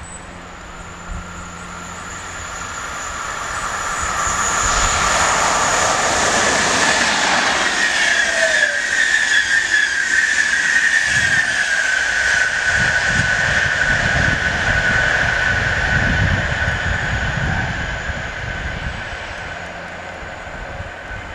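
Express passenger train passing at speed on an electrified main line: the rail noise builds up for a few seconds, runs loud as the coaches rush past, then fades away near the end. A steady high whine sits over it and drops a little in pitch about halfway through.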